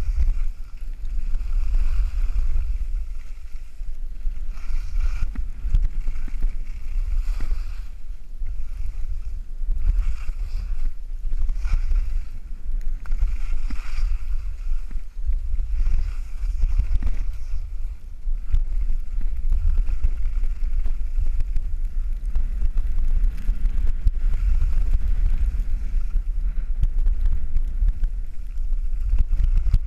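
Wind rushing over a GoPro's microphone at skiing speed, a steady low rumble. Over it, the scrape of skis on packed snow swells and fades every few seconds through the turns.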